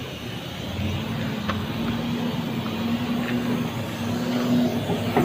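A motor vehicle engine running steadily with a low hum, under a few light metallic knocks as a truck brake drum is worked onto its hub by hand.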